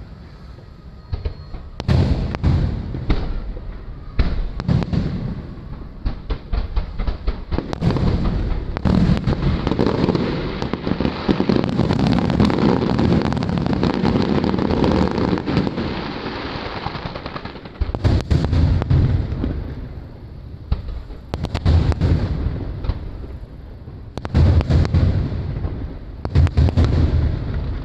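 Aerial fireworks shells bursting in quick succession with deep booms. A dense stretch of continuous crackling fills the middle, then more groups of booms come near the end.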